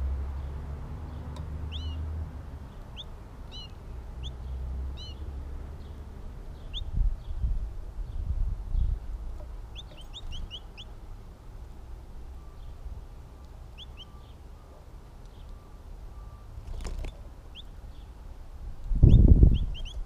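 Small songbirds chirping in short, sharp high notes, scattered singly and in quick runs, over a low outdoor rumble. A loud low thump comes about a second before the end.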